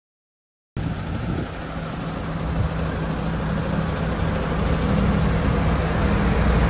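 MAN TGX 26.500 tractor unit's straight-six diesel idling steadily. It cuts in suddenly under a second in and grows slightly louder.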